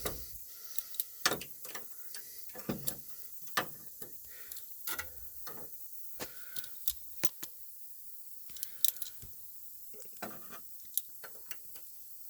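Irregular light clicks and knocks of metal parts being handled and fitted into place by hand.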